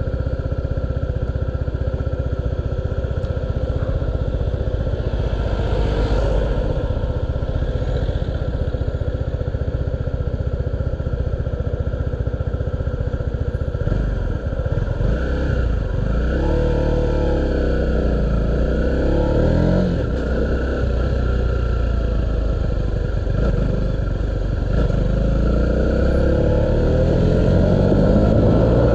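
Honda 125cc motorcycle engine running at low revs in slow traffic. From about halfway through, the revs rise and fall repeatedly as the bike pulls away and changes gear, climbing again near the end.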